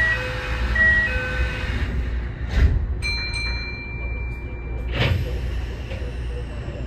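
Electronic chime notes at a station stop of a Kintetsu 6820 series electric train, a short phrase in the first couple of seconds, over the train's steady low hum. A steady high electronic tone follows for about two seconds. A thump comes about five seconds in, then a faint falling high whine.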